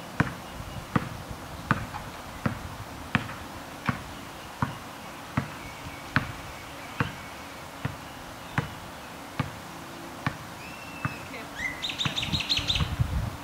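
A basketball dribbled on an asphalt road, one bounce about every three-quarters of a second, the bounces slowly growing fainter as it moves away. A bird chirps and gives a short trill near the end.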